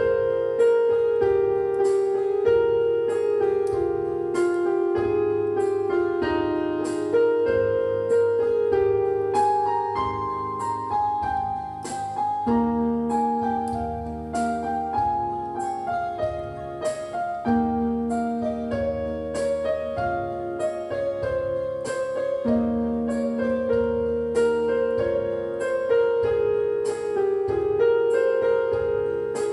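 Background piano music: a slow melody of evenly spaced notes, each struck and left to ring.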